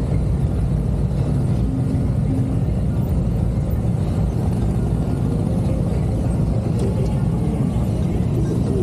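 Several motorcycle engines idling and running at low speed as a group of bikes rolls in and stops, making a steady low rumble.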